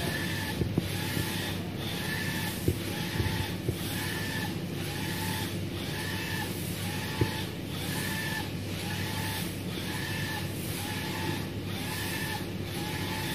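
UV flatbed printer printing: the print-head carriage sweeps back and forth about once a second, its drive whining up and down with each pass over a steady low hum, with a few sharp clicks.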